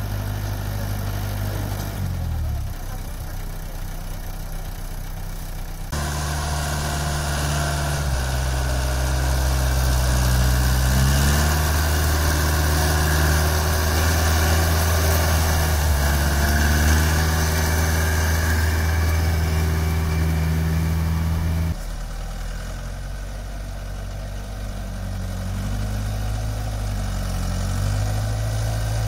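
Yunnei 90 HP diesel engine of a four-wheel-drive articulated dumper tractor running. It is steady and lower at first, then louder and working harder for a long stretch in the middle as the machine climbs dirt slopes, its pitch stepping up and down. The sound changes abruptly at sudden cuts.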